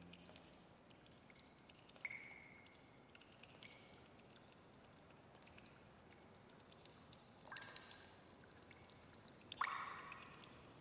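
Faint, sparse drip-like plinks, each with a short ring, a second or two apart, with small clusters about seven and a half seconds in and again near the end: the sound design of the closing soundtrack dying away.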